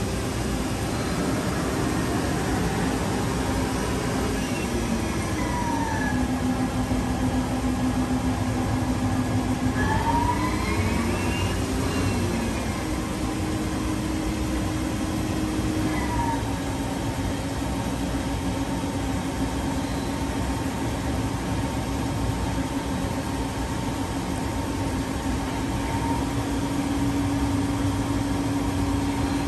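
Mori Seiki ZL-35MC CNC lathe running with its chuck spinning. The spindle drive's whine glides down about four seconds in, rises and falls again around ten to thirteen seconds, then holds steady, following changes in spindle speed.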